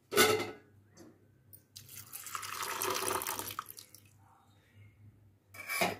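Water poured into a bowl of dry mixed beans and lentils to soak them, running steadily for about two seconds starting about two seconds in. A short, sharp clatter comes at the very start and another near the end.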